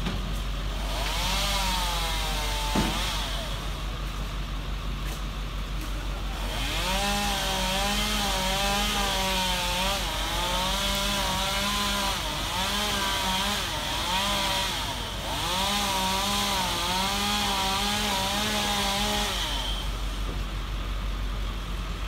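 Chainsaw cutting branches up in the tree, its pitch rising and falling as it bites. It runs briefly near the start, then for about twelve seconds from about seven seconds in, over a steady low drone. One sharp crack about three seconds in.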